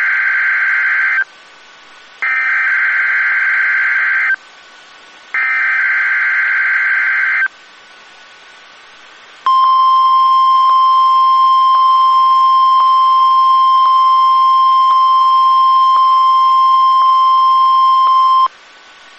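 NOAA Weather Radio SAME header: bursts of warbling two-tone digital data, the first ending about a second in and two more following about a second apart, then the steady single-pitch warning alarm tone held for about nine seconds and cut off sharply near the end. It is the weekly test of the radio's public warning system.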